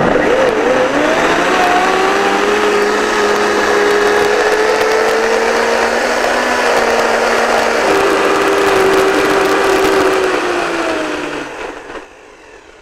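Countertop blender running at high speed, puréeing soaked cashews and squash with agave and lemon juice into a thick filling. Its motor note drops a little about eight seconds in, and it winds down and stops near the end.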